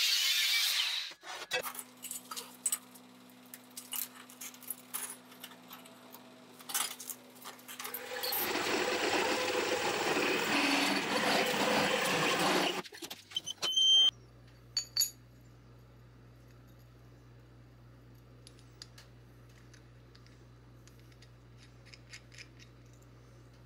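An angle grinder cutting steel plate stops about a second in. A machine motor runs with a steady hum and small metal clicks, then a step drill cuts through the steel plate for about four seconds, with sharp metallic clinks after it stops. A low steady hum with faint handling clicks follows.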